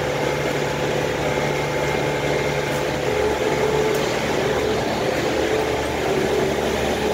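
Engine of a Core Cut walk-behind concrete saw idling steadily while the blade is out of the cut.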